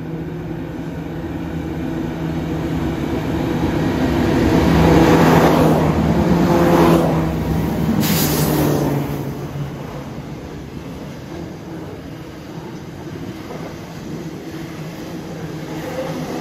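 Diesel freight train passing: the lead locomotives' engines grow louder as they approach and are loudest as they go by, then the container wagons roll past with a steadier, quieter rumble on the rails.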